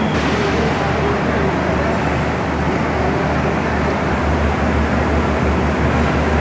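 Ambient noise of a busy railway station hall: a steady low rumble under a general din of people and machinery.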